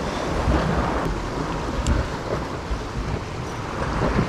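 Wind buffeting the microphone in gusts, with low rumbles about half a second, two seconds and four seconds in, over the steady wash of ocean surf against the rock ledge.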